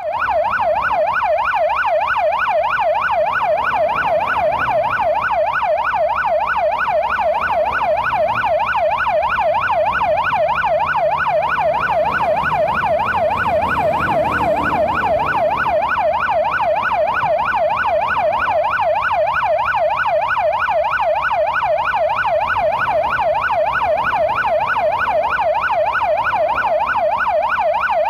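Police car siren on a fast yelp, its pitch sweeping up and down about three or four times a second at an even level. A low rumble of passing traffic swells briefly around the middle.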